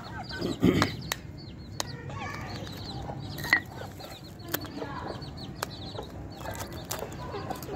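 Chickens clucking, with many short high peeping calls throughout and a few sharp taps on the concrete scattered through.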